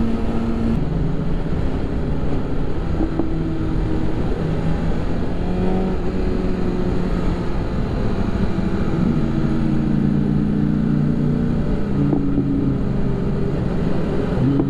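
BMW S1000RR inline-four engine with a slip-on exhaust, running steadily while the bike is ridden, over a low rush of noise. The engine note steps down about a second in and rises again around nine seconds in.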